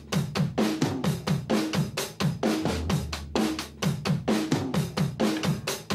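Backing music: a fast, even drum-kit beat with a deep bass whose notes slide down in pitch.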